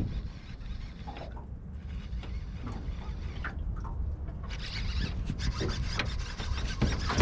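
Steady low rumble of wind and water noise. From about four and a half seconds in, light rubbing and clicking comes in and grows denser as a fishing rod and reel are worked.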